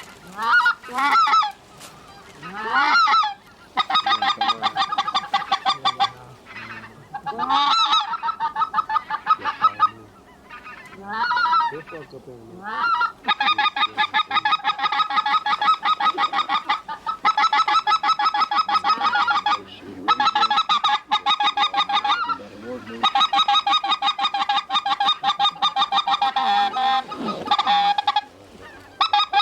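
Goose calling, loud and close. A few single honks rise and break in the first seconds. Then come long runs of rapid, even clucking and chattering, stopping and starting several times.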